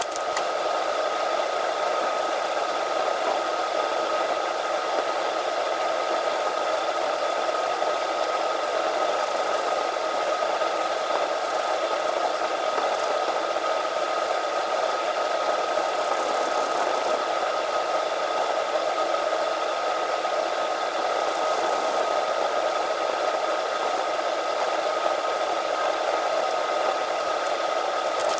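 Steady whirring hum, like a small machine or fan running, with a fixed high tone and no change in level.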